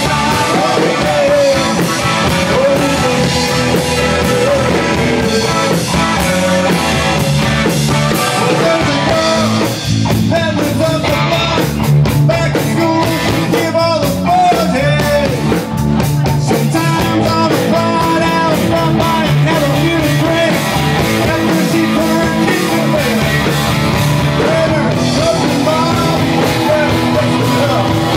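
Live rock band playing: electric guitar, bass guitar and drum kit, with a sung vocal line.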